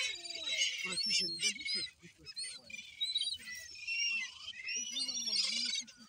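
A feeding flock of seagulls and ducks calling: many overlapping high, gliding cries, with some lower calls among them.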